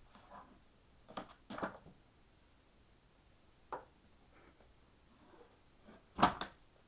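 Books pulled off a wooden bookshelf and dropping onto a rug-covered floor: a few short soft thumps and knocks, the loudest about six seconds in.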